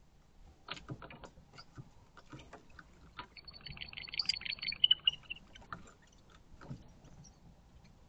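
Barn owls in a nest box: scattered clicks and scrapes of the birds shifting on the wooden box, and from about three seconds in a rough, pulsing barn owl call lasting about two seconds, the loudest sound.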